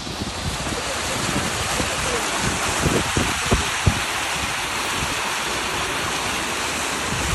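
Fountain jets splashing steadily into a stone basin, an even rushing spray of water, with a few dull low knocks from handling about three to four seconds in.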